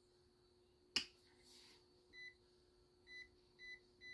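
A sharp click about a second in, then a digital multimeter giving short high beeps, four in about two seconds, as its range button is pressed to step through the resistance ranges.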